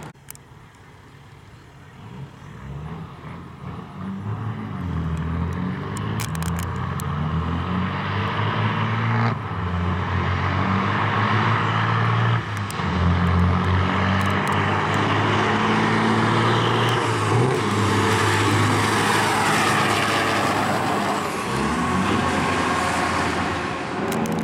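Semi-truck diesel engines accelerating hard down a drag strip, the engine note climbing and dropping in steps through the gear changes. It grows louder over the first half and stays loud.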